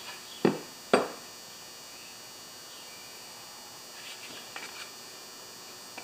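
Two sharp knocks about half a second apart from metal parts of a push mower's blade assembly being handled, then a few faint light clicks near the end.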